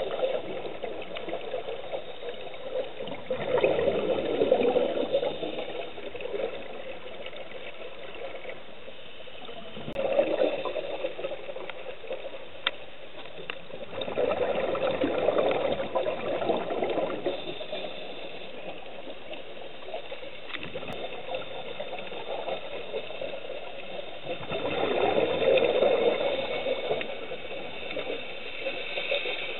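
Scuba divers' regulator exhaust bubbles heard underwater, a rush of bubbling with each exhalation, several seconds apart, over a steady underwater hiss.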